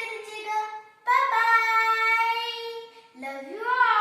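A child singing long held notes, with a note sliding up in pitch near the end.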